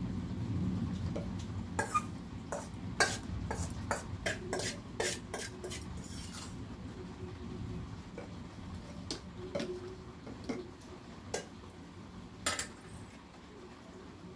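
Metal spoon clinking and scraping against metal vessels as dried powder is spooned into a storage container. A quick run of clinks comes first, then a few scattered taps, the last a sharp clink about twelve and a half seconds in.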